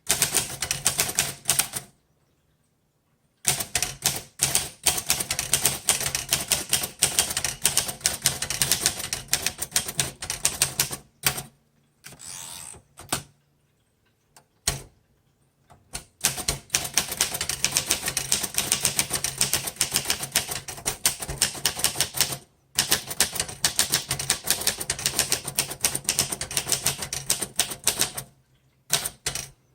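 1936 Royal Model O manual portable typewriter being typed on at speed: long runs of rapid key strikes, broken by a few short pauses.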